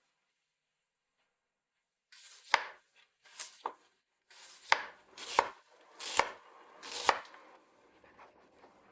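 Kitchen knife chopping food on a cutting board: about seven sharp knocks, roughly one a second, starting about two seconds in, each with a brief slicing sound just before it.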